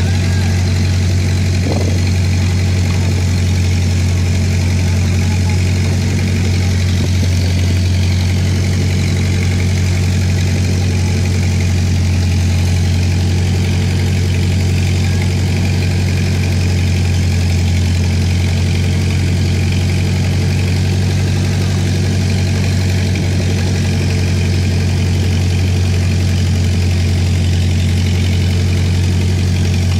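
Fishing boat's engine running steadily at idle, an even low hum that does not change in pitch or loudness.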